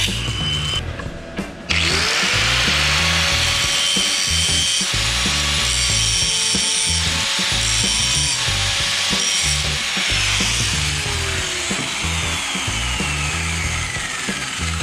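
Angle grinder with a cut-off disc: after a short pause it spins up about two seconds in and cuts metal steadily, then is switched off and winds down with a long falling whine over the last few seconds. Background music with a steady beat runs underneath.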